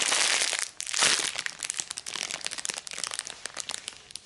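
Clear plastic bag crinkling as hands squeeze the squishy toy sealed inside it, loudest in the first second and a half, then dying down to lighter rustling.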